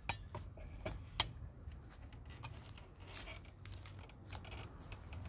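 Footsteps and rustling through grass and dry leaves, with a few sharp clicks in the first second and a half, over a steady low hum.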